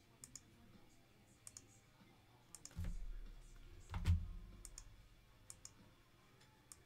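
Faint computer mouse and keyboard clicks, scattered single and paired clicks, with two dull low thumps about three and four seconds in.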